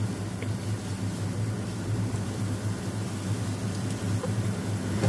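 Diced mixed vegetables sizzling steadily in a nonstick frying pan while they saute toward half done, over a constant low hum. A wooden spatula gives a couple of faint taps against the pan.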